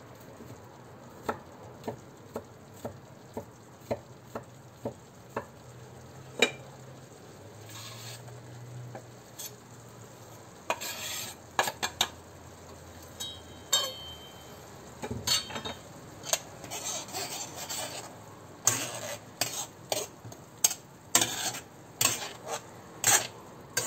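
Metal spoon stirring grated onion sautéing in oil in a frying pan, over a low sizzle, with the spoon knocking against the pan about every second at first. About halfway, a knife scrapes chopped ingredients off a wooden board into the pan, and denser stirring and scraping follows.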